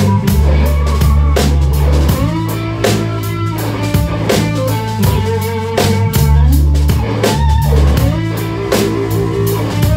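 Live rock band music, with a drum kit played close to the recorder over guitar and low bass notes. The drum hits land in a steady rhythm.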